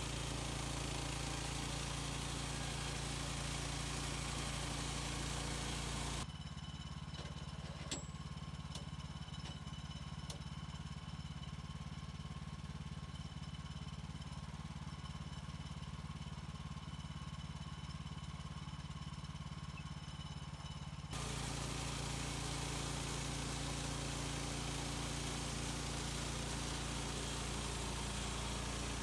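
An engine running steadily, the sound changing abruptly about six seconds in and again about twenty-one seconds in, the middle stretch duller; a single sharp click about eight seconds in.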